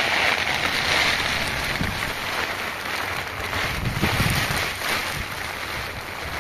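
Steady heavy rain and wind, with gusts buffeting the microphone in low rumbles, strongest about four seconds in.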